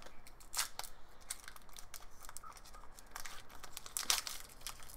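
Foil wrapper of a trading card pack being torn open and crinkled by hand: a run of short crackles and rips, the loudest about half a second in and about four seconds in.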